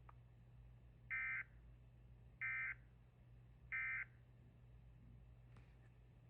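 Emergency Alert System End-of-Message tones: three short, identical bursts of the warbling SAME digital data signal about a second and a half apart, marking the end of the alert. A steady low hum runs underneath.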